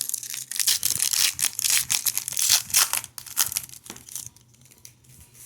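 Crinkling and tearing of a trading-card pack wrapper as it is torn open, in dense crisp crackles for about four seconds before dying down.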